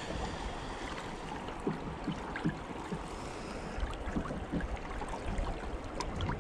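River water lapping and flowing against the hull of a small boat, with a few light clicks and knocks.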